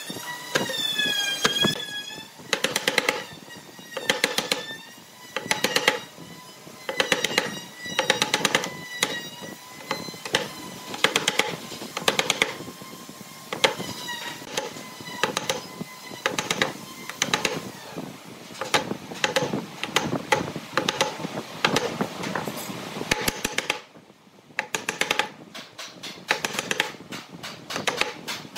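Wooden mallet striking a chisel to carve hollows into a wooden board: sharp knocks in quick runs of a few strikes every second or two, pausing briefly near the end, over background music.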